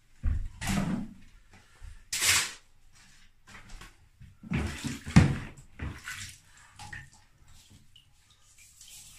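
Bath water splashing and sloshing in several separate bursts as a plastic motorcycle airbox is dunked and swished around in a bathtub of water.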